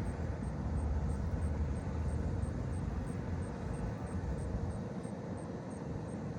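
Steady low rumble of distant engine noise, with a faint high ticking about three times a second.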